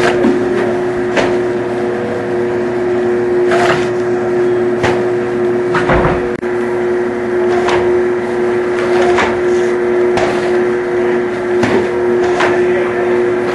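Belt-conveyor label applicator machine running with a steady hum, with sharp clicks and knocks at irregular intervals, roughly one every second or two.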